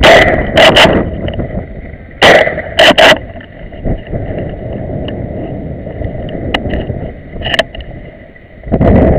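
A hunting gun's shots on a driven wild boar hunt: a quick run of loud gunshots in two bursts, one at the start and another about two to three seconds in, the first from the camera-mounted gun itself. Near the end a loud rush of wind and handling noise on the microphone as the gun swings.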